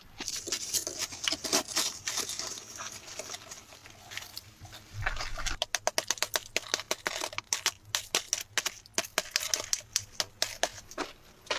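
Crunching and crackling of dry material: a long run of sharp snaps and clicks that packs into a rapid crackle in the second half.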